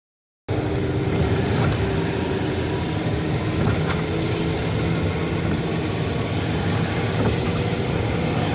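Steady vehicle engine and road noise, cutting in suddenly about half a second in and holding even.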